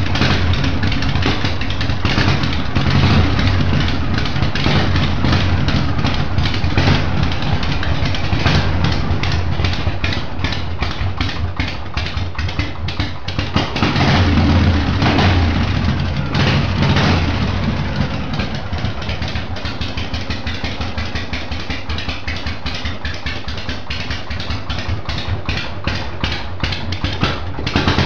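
Motorcycle engine running with a fast, even exhaust beat, growing louder for a few seconds about halfway through and then settling lower.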